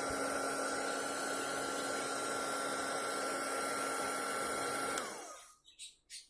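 Small hot-air heat gun for heat-shrink tubing running steadily, its fan whirring with a steady whine and hum. About five seconds in it is switched off with a click, and the whine falls away as the fan spins down.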